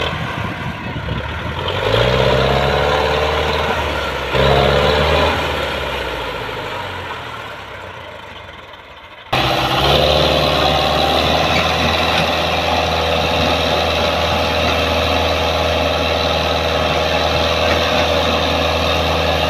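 Diesel engine of a Russian-built Belarus tractor working hard under heavy load while hauling a loaded trolley through soft ground. It revs up twice in the first few seconds, then after a sudden cut runs steadily at high revs, labouring with black exhaust smoke.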